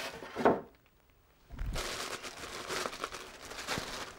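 Clear plastic bag crinkling and rustling as a rifle wrapped in it is handled and lifted from its box, starting with a low thump about one and a half seconds in.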